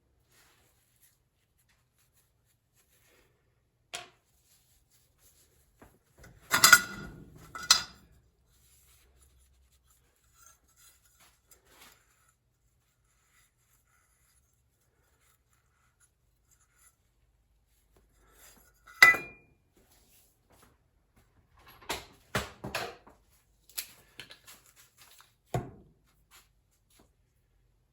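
Metal tools and parts clinking and knocking as they are handled and set down: a pair of loud clinks about seven seconds in, a sharp single strike near the middle, and a quick run of lighter clinks toward the end.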